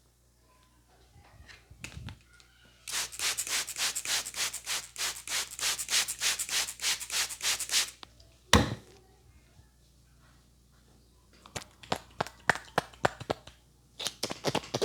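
A barber's hands rubbing fast over a customer's hair and scalp in a vigorous head massage, about five strokes a second, broken by one loud sharp slap just past halfway. Scattered sharp clicks and taps follow, then the fast rubbing starts again near the end.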